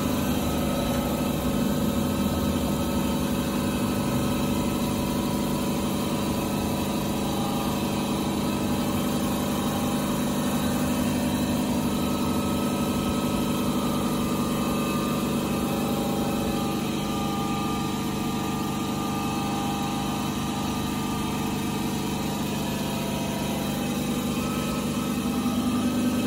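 A steady mechanical hum from a running motor, even in level and pitch throughout.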